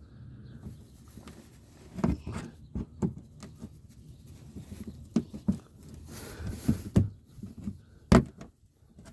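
Irregular knocks, clicks and scrapes of a plastic wheel-well fender liner and its push clips being worked loose by hand and tool, with one sharp, loud knock about eight seconds in.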